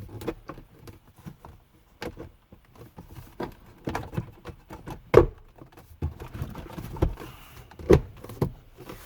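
Interior trim panel being handled and pressed into place in the truck's dash: an uneven series of clicks and knocks, the loudest about five seconds in and again near eight seconds.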